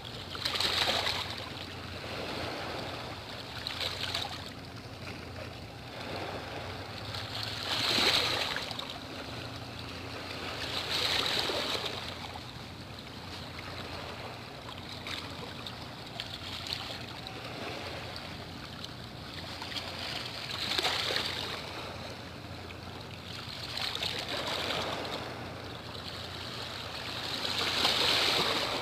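Sea water washing and lapping at the shore, the wash swelling louder every few seconds as waves come in.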